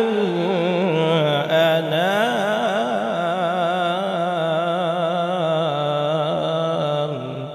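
Male qari reciting the Quran in melodic tajweed style, drawing out one long ornamented note with wavering pitch. It ends about seven seconds in and fades away.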